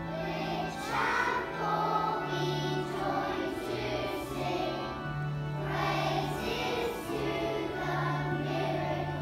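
A group of young children singing a song together over an instrumental accompaniment with held bass notes that change every second or so.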